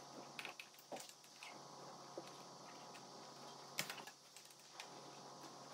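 Faint, scattered small clicks and taps of a screwdriver and plastic parts as an iRobot Roomba 960's chassis is taken apart, the sharpest click a little before four seconds in.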